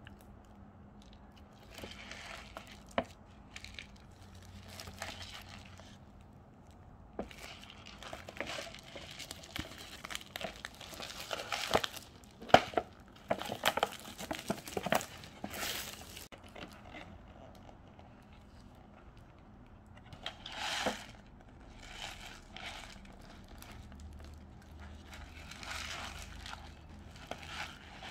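Clear plastic shrink-wrap on an instant noodle bowl crinkling and tearing as hands work it off, in irregular crackling spells. The densest spell comes about a third of the way in, with quieter gaps between.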